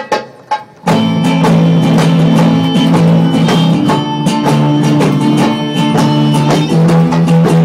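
Live band music: a few scattered hand-drum strokes die away, then about a second in strummed acoustic guitar comes in loud with quick hand-drum beats.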